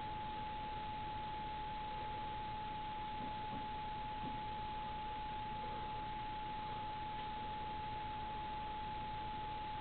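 A steady, unchanging high-pitched tone held over constant hiss.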